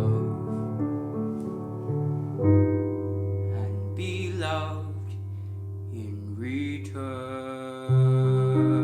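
Piano playing slow sustained chords while a male voice sings long held notes with vibrato. A louder low chord comes in near the end.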